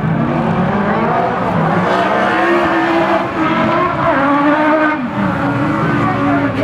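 Racing engines of off-road buggies and cars running hard on a dirt track, their pitch rising and falling as they accelerate and ease off.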